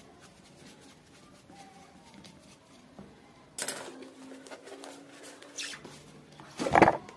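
Rubber air-intake tube of a Honda CD 70 being twisted and pulled off its clamp by hand: rubber rubbing with a drawn-out creak starting about halfway through, and a louder scrape near the end.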